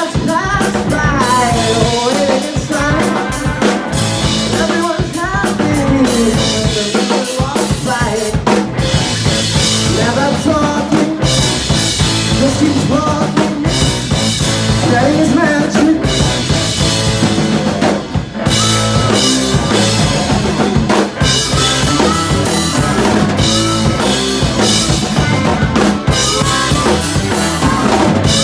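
Live rock band playing, the drum kit loud and busy, with a lead instrument bending and wavering its notes over it.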